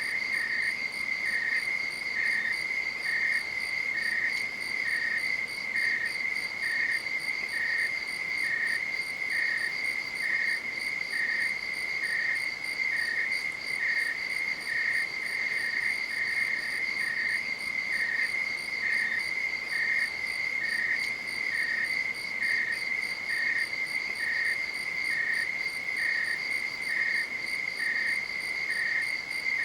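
Night-time crickets singing: a steady high-pitched trill, with a second, slightly lower chirp repeating evenly about once a second.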